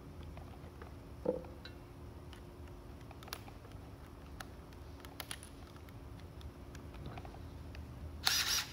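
Makita DTD156 18V impact driver being handled: scattered light clicks as a bit is changed in its quick-release chuck, then a short burst of about half a second near the end as the driver briefly spins free.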